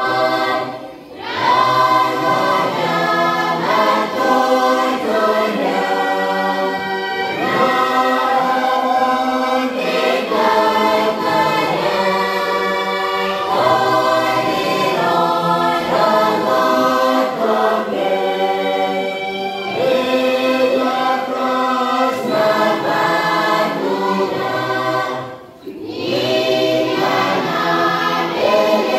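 Mixed choir of men and women singing a hymn together, with short breaks between phrases about a second in and again near the end.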